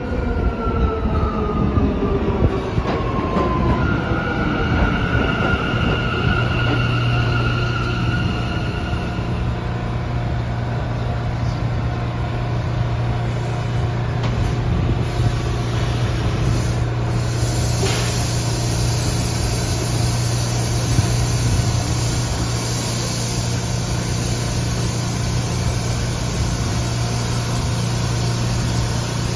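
New York City Subway C train arriving and stopping at a platform. Its motor whine falls in pitch as it slows, a high steady squeal lasts several seconds as it comes to a stop, and then the standing train gives a steady low hum.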